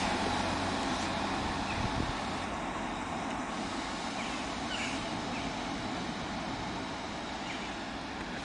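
Class 150 Sprinter diesel multiple unit moving away along curved track. The underfloor diesel engine and the wheels on the rails run steadily and slowly fade.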